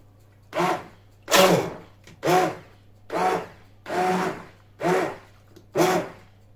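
Hand blender pulsed in seven short bursts, about one a second, each a brief motor whine that spins up and dies away, through a pot of cooked pepper and garlic sauce. It is pulsed only briefly so that the sauce stays slightly chunky rather than smooth.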